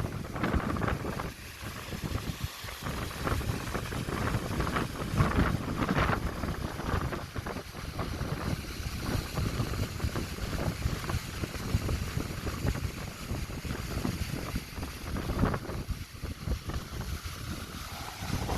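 Wind gusting on the microphone over the rush of rough sea water, rising and falling unevenly.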